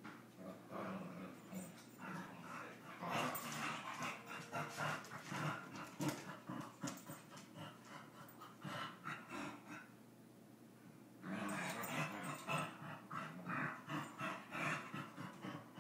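Two small dogs play-fighting, panting and making rough dog noises in quick irregular bursts, with a short lull about ten seconds in before it picks up again.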